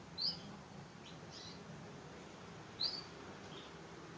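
Caged canaries giving short, high chirping call notes, about four in the space of a few seconds, two of them louder than the rest, over a faint low hum.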